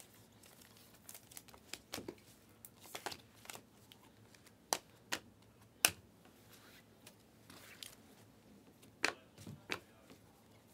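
A stack of Panini Prizm chromium trading cards being flipped through by hand: soft sliding and rustling of card on card, with a handful of sharp clicks as cards snap against the stack, the loudest a little past the middle.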